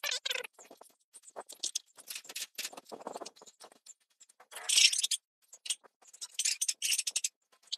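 Ratchet socket wrench clicking and rattling in quick, irregular bursts as spark plugs are tightened clockwise into the cylinder head, played fast-forward. The loudest burst comes about halfway through.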